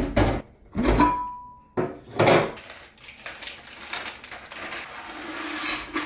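Knocks and clinks as the wooden lid is taken off a large glass storage jar and set down, one with a short clear ring from the glass about a second in. Then the crinkle of a plastic rice bag and dry rice grains hissing into the glass jar, growing louder near the end.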